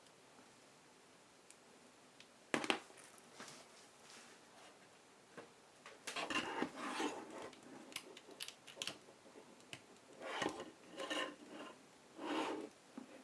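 Objects being handled: a sharp click about two and a half seconds in, then several bursts of short rubbing and scraping noises with small clicks.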